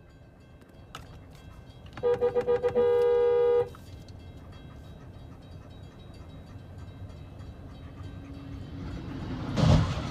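A vehicle horn sounding in several quick toots and then one held blast of about a second and a half. Near the end comes a sudden loud bang.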